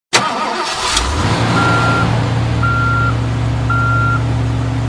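A Mitsubishi Fuso Canter light truck running on its diesel engine while its reversing alarm gives three evenly spaced beeps, about a second apart.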